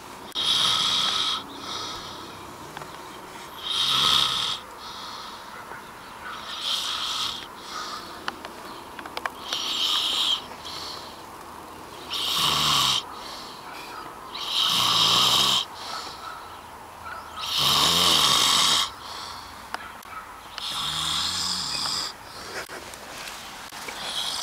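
A man snoring in his sleep: a rasping snore every two to three seconds, the longest and loudest ones past the middle.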